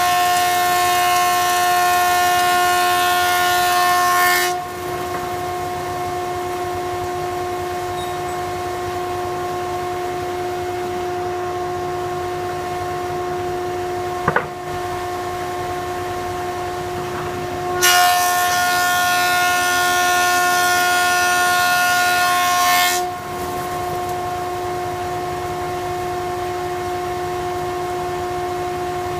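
Thickness planer running with a steady whine. Twice a board is fed through: a loud cutting noise lasting about five seconds, once at the start and again about eighteen seconds in. A single knock comes about halfway.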